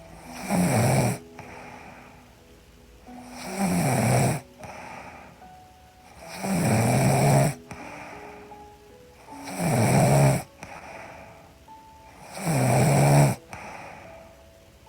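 A woman snoring in her sleep: five loud snores at an even pace, about one every three seconds, each dropping in pitch as it goes.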